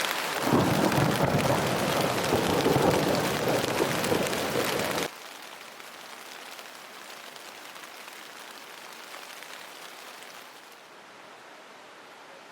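Heavy rain pouring down, loud and dense with a low rumble in it, cutting off abruptly about five seconds in. A much quieter, steady hiss of rain follows.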